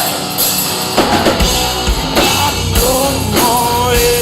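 Live rock band playing loudly, with drum kit hits throughout and a long held note that bends down near the end.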